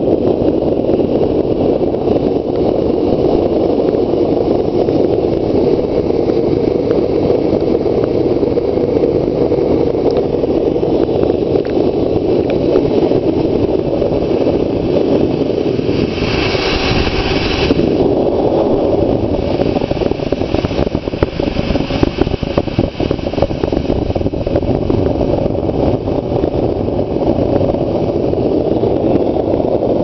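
Gas-fired homemade smelting furnace running hot, with a steady, loud burner roar. A brighter hiss lasts about two seconds roughly halfway through.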